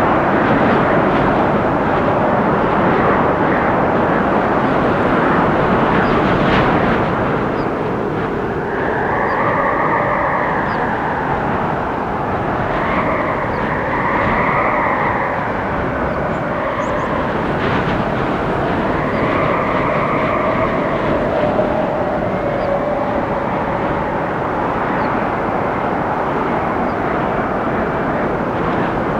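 Windstorm roaring steadily through forest trees, with a whistling tone that rises and falls in pitch several times in the middle as gusts come through.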